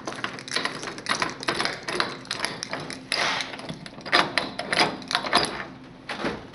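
Snack vending machine's door lock and handle being worked and the door pulled open: an irregular run of metallic clicks, rattles and knocks.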